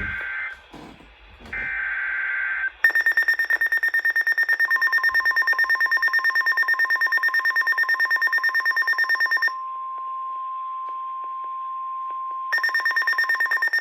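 NOAA Weather Radio alert for a flash flood warning. It opens with two short bursts of the digital SAME header, then the receiver's rapid, even alarm beeping starts. The steady warning alarm tone joins the beeping a couple of seconds later, sounds alone for about three seconds once the beeping stops, and the beeping comes back near the end.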